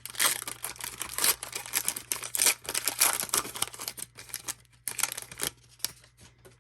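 Wrapper of a sports card pack crinkling and tearing as the pack is opened, a dense crackle for about four seconds, then a few separate clicks near the end.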